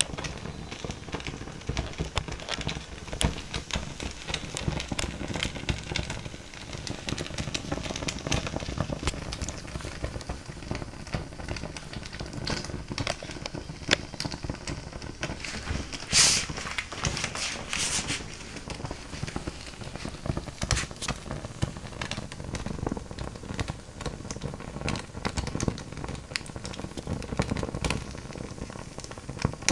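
Fire crackling steadily with dense, irregular small pops, and a few louder pops about halfway through.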